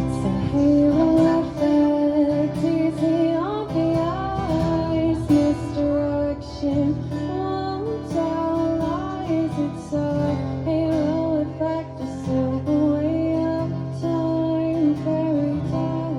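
Live roots-pop song in an instrumental passage: strummed acoustic guitar with regular percussion hits, and a melody on top that slides and wavers in pitch, without lyrics.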